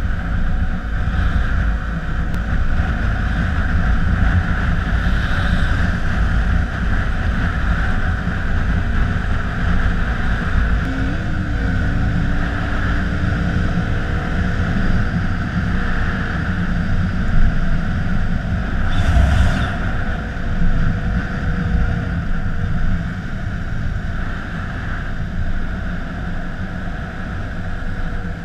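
Wind rushing over a motorcycle at road speed, with the KTM Duke 125's single-cylinder four-stroke engine running steadily underneath; the engine's pitch dips and rises briefly about eleven seconds in, and a short gust of noise comes through near nineteen seconds.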